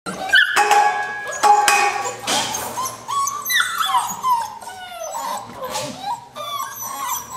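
Seven-week-old puppies whining and yipping, many short high cries that slide down in pitch, overlapping one another, with a few clicks and knocks in the first two seconds.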